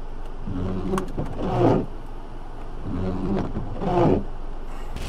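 Car windshield wipers sweeping across wet glass: a low motor groan with a rubbing squeal at the end of each stroke, repeating about every two and a half seconds.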